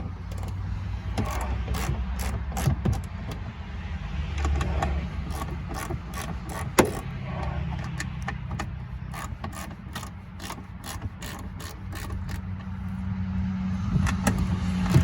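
Hand socket ratchet clicking in runs as 10 mm bolts holding a car tail light are backed out, with a louder knock about seven seconds in. A low steady hum runs underneath.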